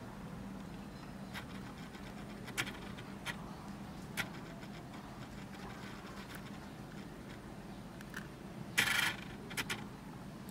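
Scattered small sharp clicks and taps over a low steady hum, with a short hissing burst near the end that is the loudest sound.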